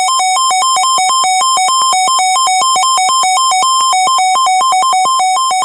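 Electronic emergency alert tone: a loud, buzzy two-pitch warble that switches rapidly back and forth between a lower and a higher beep, several times a second, at an even level. It cuts off abruptly just after this, ahead of the next warning message.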